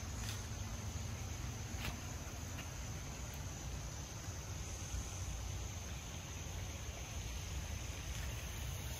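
Steady high-pitched insect drone over a low, steady rumble, with a couple of faint clicks in the first two seconds.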